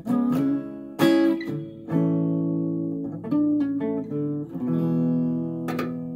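Acoustic guitar strummed, about five chords struck a second or so apart, each left to ring.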